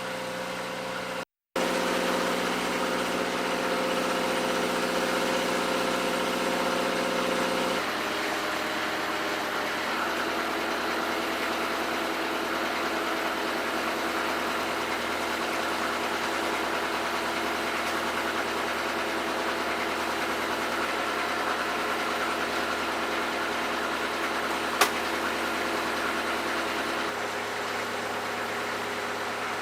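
A wooden motor cruiser's inboard engine running steadily underway, its note changing abruptly about eight seconds in and again near the end. A single sharp click about 25 seconds in.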